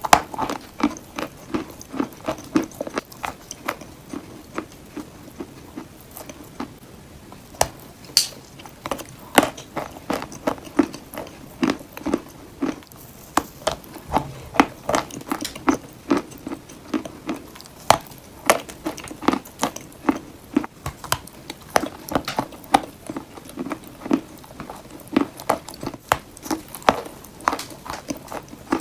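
Chalk being bitten and chewed close to the microphone: a run of sharp, dry crunches, two or three a second, with a brief lull about a quarter of the way through.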